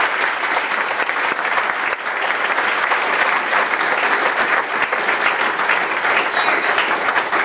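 A crowd applauding: many hands clapping together in a steady, dense ovation.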